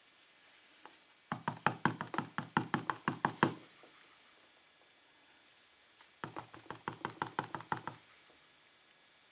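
A DOM euro lock cylinder being rapped, in two bursts of quick sharp knocks a few seconds apart, to shake loose a pin stuck in the bible.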